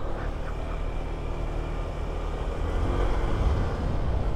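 Motorcycle engine running while riding, with a low rumble of road and wind noise, growing slightly louder.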